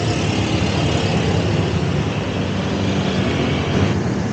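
Wind rushing over the rider's microphone on a moving bicycle, mixed with the steady noise of motor traffic close by. A brighter hiss in the mix drops away about four seconds in.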